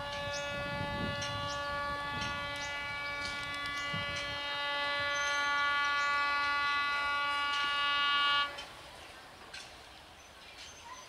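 Locomotive horn sounding one long, steady blast that cuts off suddenly near the end.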